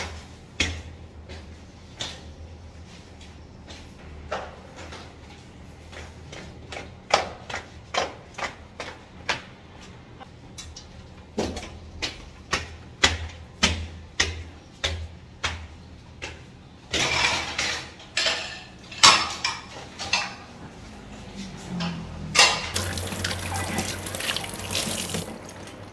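Irregular footsteps and knocks on concrete stairs, about one or two a second, as shopping bags are carried up. Then a kitchen tap runs into a sink in two spells of about three seconds each, with things being rinsed under it.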